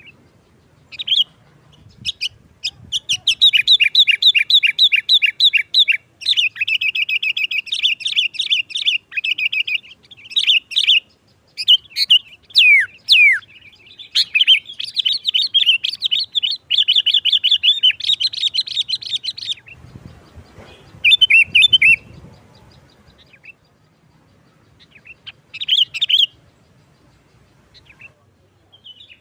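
Sooty-headed bulbul (kutilang) singing in fast, loud chattering runs of quick repeated notes, broken off after about two-thirds of the time, then only a few short phrases.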